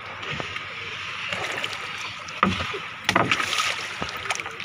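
Water sloshing and splashing against the wooden hull and bamboo outrigger floats of a bangka outrigger boat, with a few sharp knocks about halfway through.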